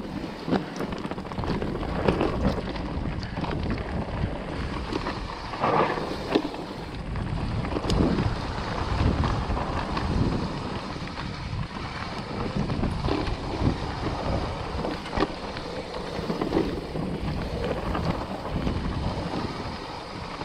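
Wind buffeting an action camera's microphone on a fast mountain-bike descent, over a steady rumble of tyres on a dirt trail. Irregular knocks and rattles come from the electric mountain bike over roots and bumps.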